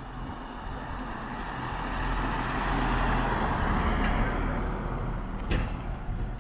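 A road vehicle passing by. Its engine and tyre noise swells to a peak about three seconds in, then fades away, with a sharp click near the end.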